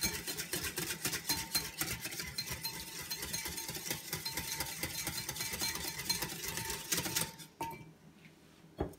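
Wire balloon whisk beating a thin egg, oil and water mixture in a bowl: a fast, continuous run of light clinks and sloshing that stops about seven seconds in. A couple of single light knocks follow near the end.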